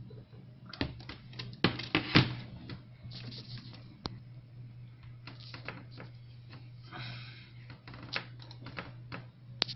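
Irregular sharp clicks and taps, a few close together about two seconds in and others spread through the rest, over a steady low hum.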